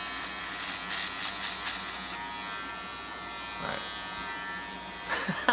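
Electric razor buzzing steadily while it is run over a full beard, the buzz roughening at moments as it cuts through the whiskers. A few sharp knocks near the end.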